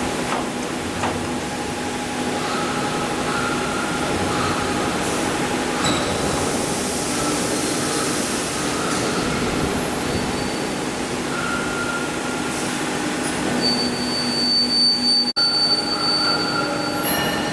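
Steel coil slitting machine running: a steady metallic din with several high squealing tones that come and go over it. The sound drops out for an instant about fifteen seconds in.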